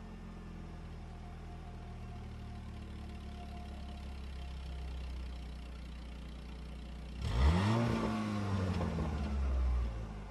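Voskhod 3M motorcycle's single-cylinder two-stroke engine idling steadily, then revved once about seven seconds in, the pitch climbing fast and sinking back before it drops to idle near the end.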